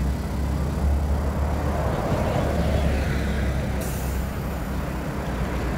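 Street traffic: a steady low rumble of vehicle engines, with a hiss that starts suddenly about four seconds in.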